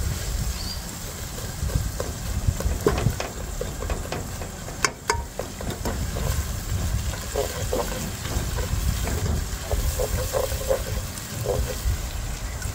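Chopped onions and ginger-garlic paste frying in hot oil in a non-stick pot, sizzling and crackling as a silicone spatula stirs and scrapes them, with a couple of sharp knocks about five seconds in, over a steady low rumble.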